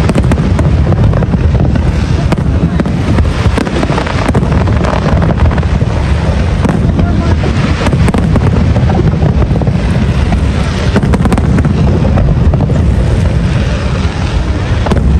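Fireworks display firing in a continuous barrage: many sharp cracks and bangs over a steady deep rumble, with no pause.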